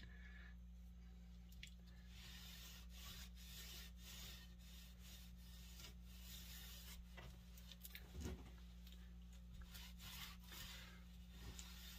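Rag rubbing linseed oil into a wooden axe handle: faint repeated strokes of cloth on wood, over a steady low hum, with one soft thump about eight seconds in.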